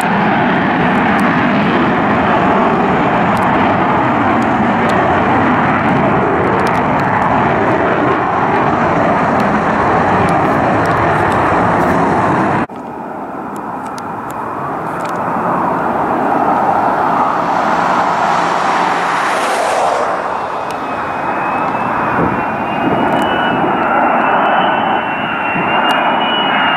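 Lockheed F-35A Lightning II jet engine noise, loud and steady, from an F-35 on the runway. About halfway through it cuts abruptly to a pair of F-35s approaching in formation with gear down: their roar builds, and a high, slightly wavering whine joins in during the last third.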